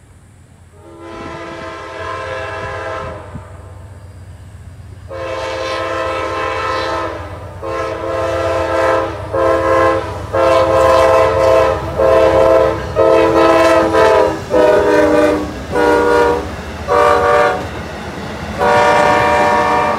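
Amtrak diesel locomotive's multi-tone air horn sounding for a grade crossing: two long blasts, then a rapid string of shorter blasts, the chord dropping slightly in pitch as the locomotive passes close by. The low rumble of the passenger train rolling past runs underneath and grows louder.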